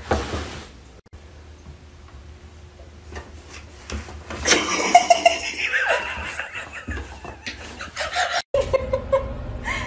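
A person laughing, starting about four seconds in and going on for a few seconds.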